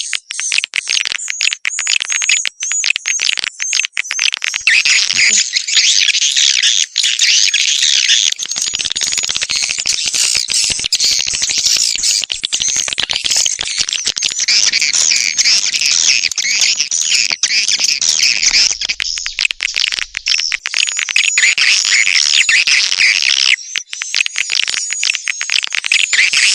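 Swiftlet call recording: many swiftlets chirping and twittering densely and without break. It is a lure call played in a swiftlet house to draw wild swiftlets in to nest.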